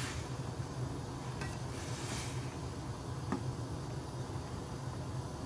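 Metal tongs stirring rice cakes in a simmering pot of soupy tteokbokki: a soft stirring swish and a few light clinks of the tongs against the pot, over a steady low hum.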